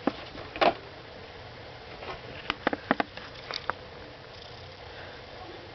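Several short, light clicks and taps over a faint steady hiss.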